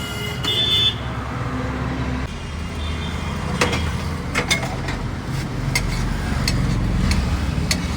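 Street traffic rumbling steadily, with a brief high squeal near the start and a string of sharp metallic taps and clinks from about halfway in.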